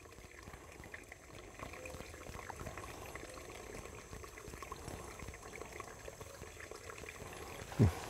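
Shallow, slow-flowing creek trickling faintly and steadily over sticks and leaf litter. A much louder sound cuts in just before the end.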